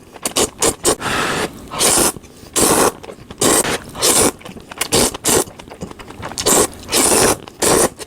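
Ramen noodles being slurped in a run of short noisy pulls, about one every half-second to second, with a few quick wet mouth clicks in the first second.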